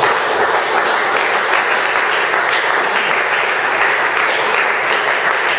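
A congregation applauding: steady clapping that breaks out suddenly and keeps up at an even level.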